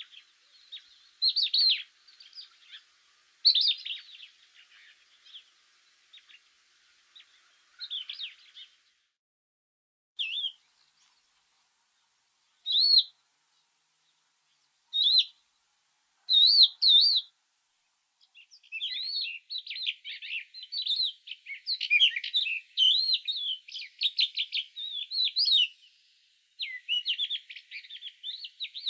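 Birds singing: scattered high chirps and short warbled phrases with pauses between them, then, a little past the middle, a fast and nearly continuous run of twittering notes.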